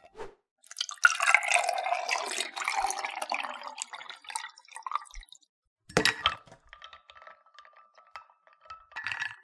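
Cold brew coffee poured over ice cubes in a glass, a loud splashing pour, followed by a sharp clink about six seconds in and a quieter trickle with faint crackles as milk is poured into the iced coffee.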